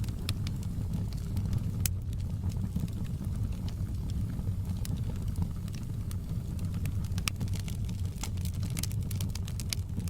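Wood fire burning in a fireplace: a steady low roar of flames with irregular sharp crackles and pops from the logs, coming thicker near the end.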